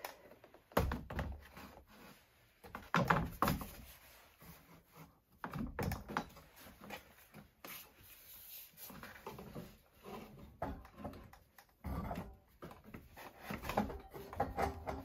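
Ski-Doo Expedition Sport muffler knocking and scraping against the snowmobile's chassis and engine-bay parts as it is worked back into place by hand: irregular scrapes with several louder thuds.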